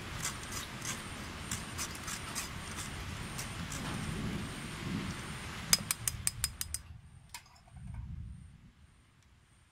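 Water sloshing as a hand swishes food around in a wire-mesh strainer dipped in a pot of steaming water, with scattered clicks. A quick run of clicks about six seconds in, after which it goes much quieter.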